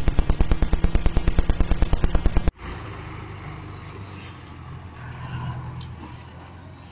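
A rapid volley of sharp bangs, about ten a second, like machine-gun fire, that cuts off suddenly about two and a half seconds in. Then a dump truck's engine runs at low revs, much quieter, with outdoor background noise.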